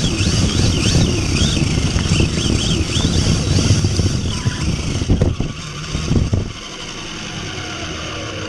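Large-scale RC buggy driving, heard from a camera on its own chassis: drivetrain and tyre rumble with a high whine that rises and falls with the throttle. About six and a half seconds in the sound drops suddenly to a quieter steady hum as the car slows.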